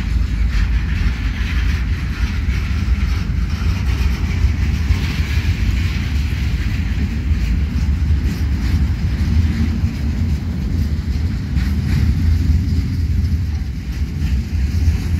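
Freight train's loaded container flat wagons rolling past close by: a steady, loud rumble of steel wheels on the rails, with a few faint clicks.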